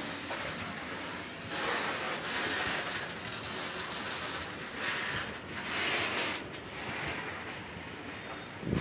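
Train running on the rails, a steady rattling clatter of wheels and carriages that swells and eases several times.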